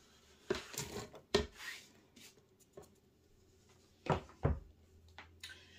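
Handling knocks and scrapes of a plastic cutting board as diced onion is scraped off it into an empty metal cooker pot: a few knocks about half a second to a second and a half in, and two more about four seconds in.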